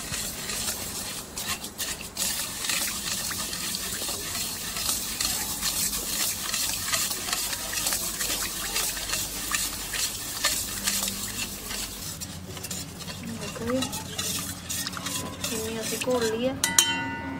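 A spoon stirring and scraping quickly around a stainless steel bowl of milk and sugar, dissolving the sugar. A single sharp, ringing clink sounds shortly before the end.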